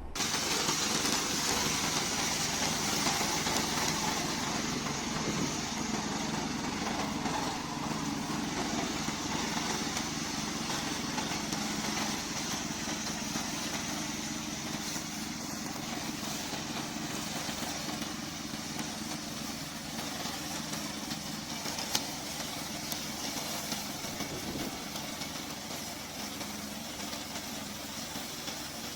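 Remote-controlled brush mower's small engine running steadily while mowing, growing slowly a little quieter, with one brief sharp knock about two-thirds of the way through.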